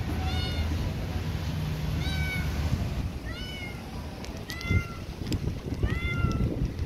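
Tabby cat meowing about five times, short calls a second or so apart, each rising then falling in pitch. A few low thumps come in the second half.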